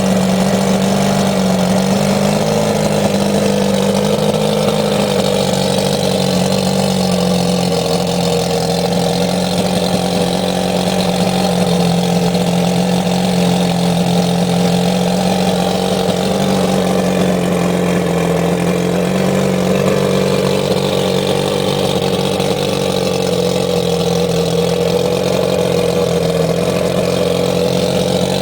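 1998 Force 120 HP two-stroke outboard engine running steadily at a constant speed, its pitch wavering only slightly.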